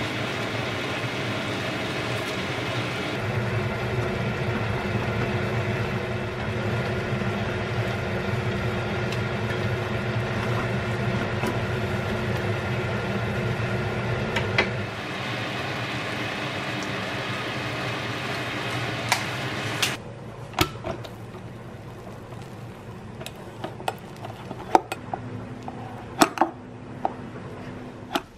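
Curry of chickpeas, cherry tomatoes and onion bubbling and sizzling in a cast-iron pan, a dense steady sound. At about 20 s it drops to a quieter hiss broken by scattered sharp clicks and taps of utensils.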